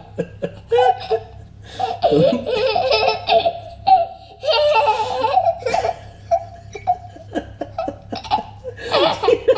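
A young boy laughing hard, in several fits of belly laughter with short breaks between them.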